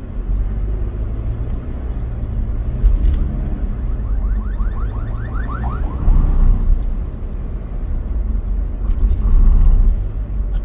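Steady low rumble of a car's engine and tyres, heard from inside the cabin while cruising on an expressway, with a brief rapid rattle about four to six seconds in.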